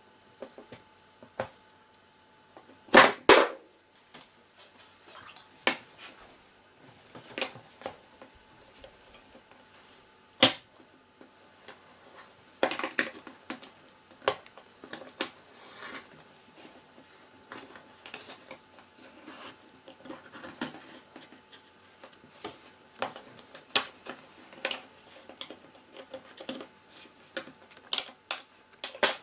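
Antique cast-iron hand can opener cutting around the lid of a tin soup can in short levering strokes: an irregular run of metallic clicks and crunches, loudest about three seconds in and again about ten seconds in. It cuts with difficulty.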